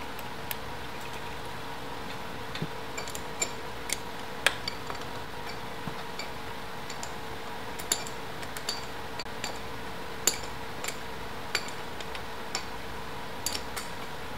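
Irregular light metallic clicks and clinks from a hand tool on the cylinder base nuts and studs of a YZ125 two-stroke as the nuts are snugged down lightly, about one or two a second. A steady faint hum runs underneath.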